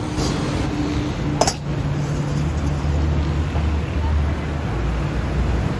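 Busy street-food kitchen ambience: a steady low rumble, likely from gas burners and fans, under background voices, with a single sharp metal clink about a second and a half in.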